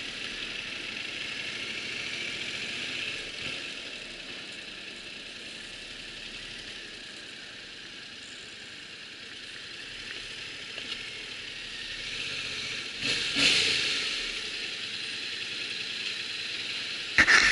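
Yamaha MT-07 parallel-twin ridden slowly on its stock exhaust, which is so quiet it sounds like an electric scooter: mostly a steady hiss, with a brief louder swell about thirteen seconds in.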